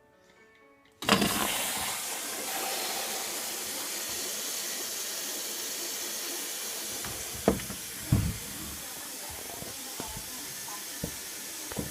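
Indesit 860B washing machine's water inlet valve opening suddenly about a second in, then a steady hiss of water rushing into the machine as it fills for the prewash. Two brief knocks about halfway through.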